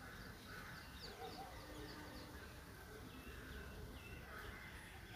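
Faint birds chirping, with runs of short, high, downward-sliding calls, over a low steady rumble.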